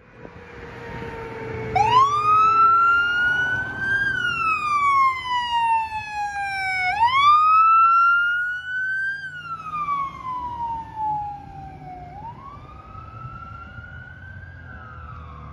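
Electronic siren on a fire department response truck, sounding a slow wail that rises and falls about every five seconds. It is loudest as the truck goes by and grows fainter over the last few seconds as it drives away.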